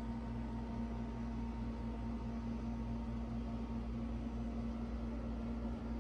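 Steady background hum of a running machine, with a constant low tone over a faint even hiss.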